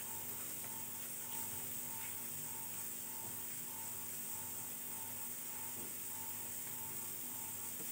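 Steady electrical hum and hiss, with a faint tone pulsing about twice a second.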